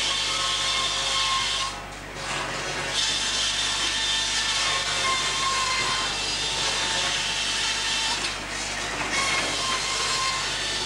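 Sawmill saw cutting timber, a loud dense noise that briefly drops away twice, about two seconds in and again about eight seconds in.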